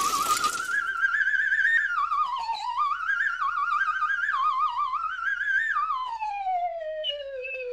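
Intro music: a single theremin-like tone with a strong vibrato, sliding up and wavering through a short melody, then gliding steadily down in pitch near the end. A brief rushing noise sounds right at the start.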